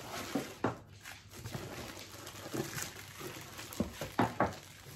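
Plastic wrap and styrofoam packing crinkling and rustling as a wrapped item is lifted out of a cardboard box, with a few sharp clicks and knocks, two close together near the end.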